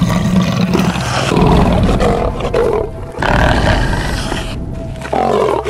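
Leopard snarling at close range: loud, raspy snarls of a second or two each, repeated with short breaks.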